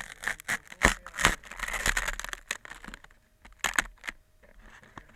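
A series of sharp clicks and knocks with rustling between them, like things being handled close to the microphone.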